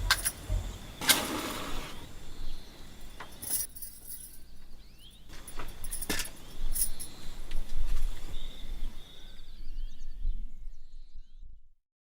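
Scattered knocks and clattering over outdoor background noise, with a few faint chirps; it cuts to silence shortly before the end.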